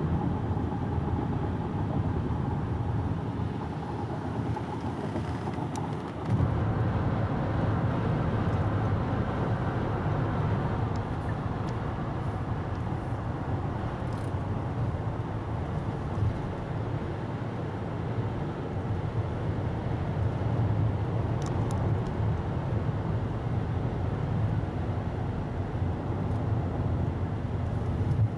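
Steady road noise inside a moving car at highway speed: tyre and engine drone with wind. The sound steps up slightly about six seconds in.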